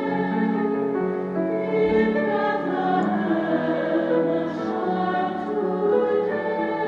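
A choir singing a slow piece in long held notes that shift from chord to chord.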